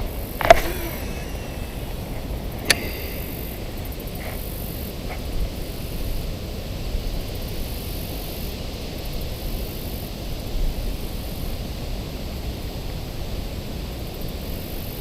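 Steady rushing wind noise on the microphone. A sharp knock comes about half a second in, a click follows a couple of seconds later, and a few faint ticks come after that.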